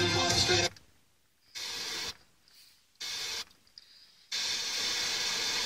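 Pioneer car FM radio being stepped up the band: a station's music cuts off under a second in, and the tuner then mutes between frequencies, broken by three short bursts of hiss-like static from weak signals, the last and longest near the end.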